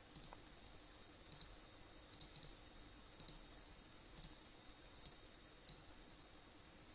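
Faint computer mouse clicks, scattered irregularly, over a faint steady room hum.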